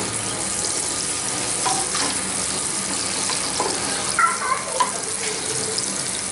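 Sliced onions and green chilies sizzling steadily in hot oil in a frying pan, stirred with a wooden spatula.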